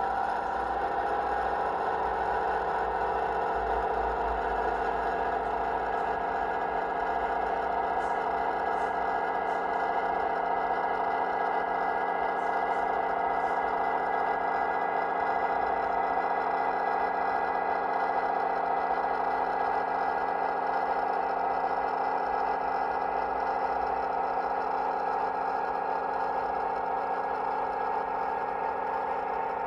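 Class 150 DMU diesel engine sound from a model's DCC sound decoder, played through the model's small speaker, running at a steady, even pitch while the model moves along the track.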